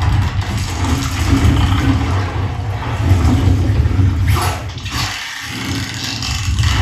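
Dolby Atmos demo clip played through an LG Eclair QP5 soundbar: a loud, dense sound effect with heavy deep bass, dipping briefly about five seconds in.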